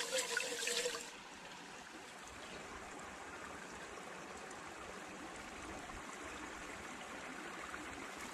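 Hands swishing rice in water inside a rice-cooker inner pot for about a second, then a sudden change to the steady, even rush of flowing water.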